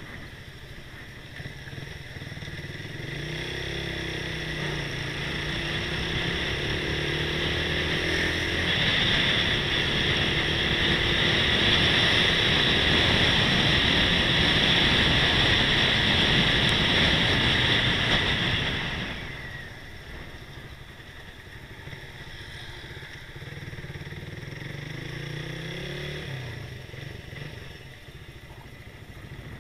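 Motorcycle engine accelerating, rising in pitch over the first several seconds, then loud wind rush on the camera's microphone at speed for about ten seconds. The rush cuts off suddenly as the bike slows, and the engine is heard again, quieter, at low speed near the end.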